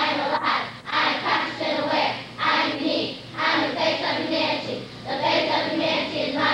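A group of children chanting a recitation in unison, in short phrases with brief breaks about every second.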